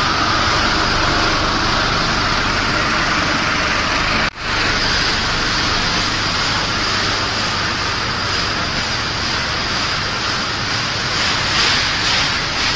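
Steady, loud mechanical din of a running puffed-snack production line, an even hiss with a faint high whine. It cuts out for a split second about four seconds in.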